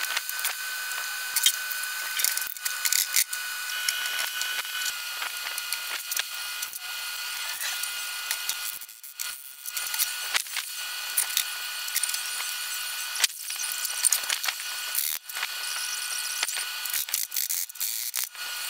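Metal clanks, taps and clicks from dismantling an old AEG drill press head, with a hammer knocking on the pulley housing near the end. A steady high whine and hiss sits underneath.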